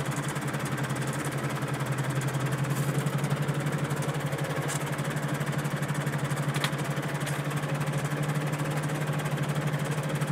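Red International tractor's diesel engine running steadily at low revs, heard from inside its cab, with an even, fast throb.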